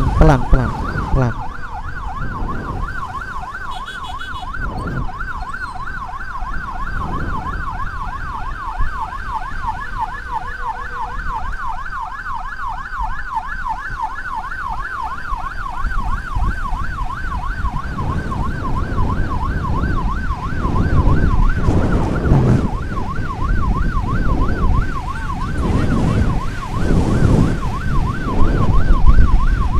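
Emergency siren on a fast yelp, its pitch sweeping up and down several times a second without a break, over engine and road noise that swells in the second half.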